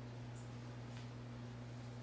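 Steady low electrical hum of room tone, with two faint ticks about half a second and a second in.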